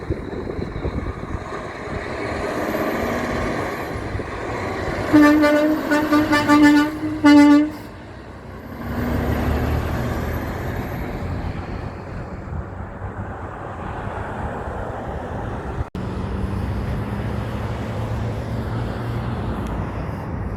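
Big truck's horn blowing a quick run of short toots and then one more blast, about three seconds in all, over the rumble of heavy trucks driving past.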